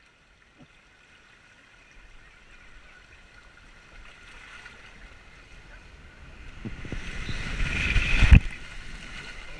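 Water rushing under an inflatable tube as it slides down a water slide. The rush builds steadily, is loudest about eight seconds in, then drops off sharply.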